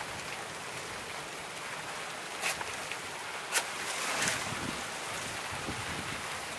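Steady outdoor wind noise with rustling of banana leaves, broken by two short sharp knocks about two and a half and three and a half seconds in, the second the loudest, and a brief rustle just after.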